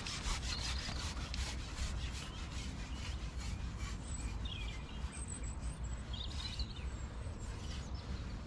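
Continuous close rubbing and rustling noise with a dense run of small scratchy ticks. A few short bird chirps come through at intervals.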